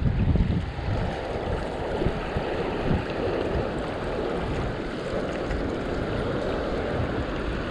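Steady wind buffeting the microphone over the rush of the river current around the wading angler.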